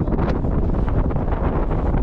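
Wind buffeting the camera microphone, a loud, unsteady low rumble.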